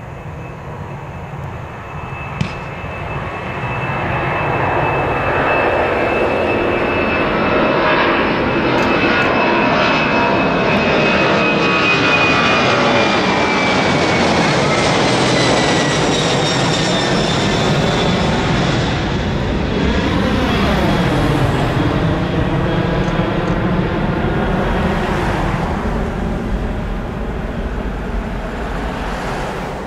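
Twin-engine jet airliner climbing out on take-off and passing overhead. The engine noise builds over the first few seconds, a high whine slides down in pitch as it passes, and the noise eases off near the end as the plane climbs away.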